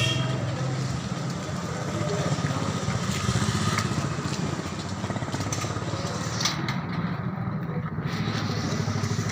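A small motor or engine running steadily, with a rapid low pulsing.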